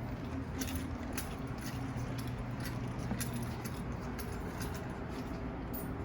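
Steady low hum of a running washing machine, with scattered light clicks and jingles.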